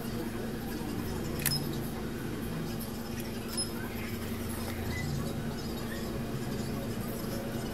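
Steady low electrical hum, with one sharp click about a second and a half in and a fainter tick about two seconds later, typical of small tools touching a board during soldering work.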